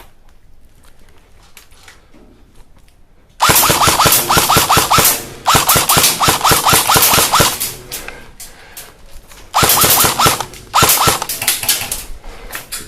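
Airsoft electric rifle firing on full auto close by, in four bursts starting about three and a half seconds in: two long strings of rapid shots, then two short ones.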